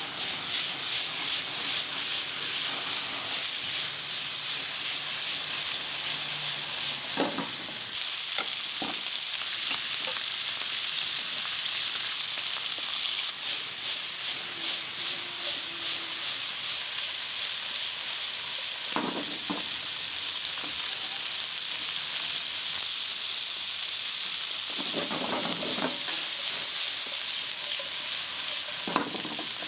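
Cubes of beef steak sizzling hard in frying pans over high gas flames, a steady hiss as the pans are stirred and tossed. A few short knocks come now and then.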